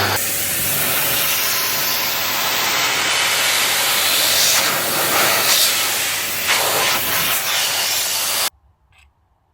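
Loud, steady hiss of a high-pressure jet, surging briefly a few times, that cuts off abruptly near the end.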